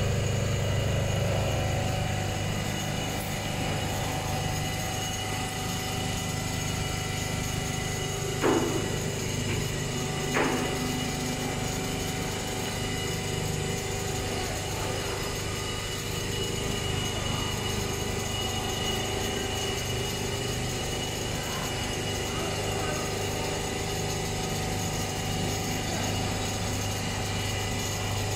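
Richpeace computerized quilting machine running steadily as its sewing head stitches, a steady hum with a constant whine above it. Two short sharp knocks come a couple of seconds apart about a third of the way in.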